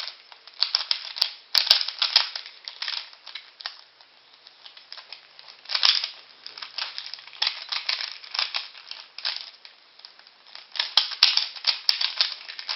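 Rubik's Cube being scrambled by hand: the plastic layers are twisted rapidly, giving quick runs of clicking and clacking with short pauses between them.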